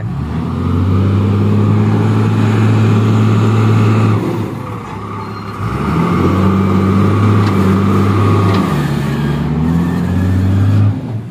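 Heavy diesel earthmoving machinery working under load to free a wheel loader stuck in mud. The engine is held at high revs, eases off about four seconds in, revs up again, and eases off near the end.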